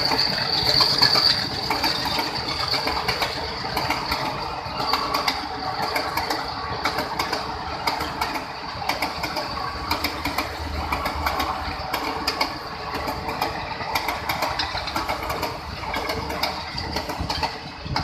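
Express passenger coaches rushing past at speed: a steady rumble of wheels on rail with many sharp clicks as the wheels cross rail joints. A high whine fades out in the first second, and the noise drops away right at the end as the last coach passes.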